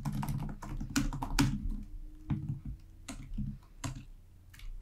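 Typing on a computer keyboard: a quick run of keystrokes over the first two seconds, then single key presses spaced further apart.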